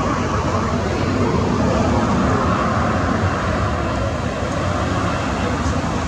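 Steady noise of a twin-engine Boeing 737 jet airliner's engines on final approach to land, heard from outside the airfield.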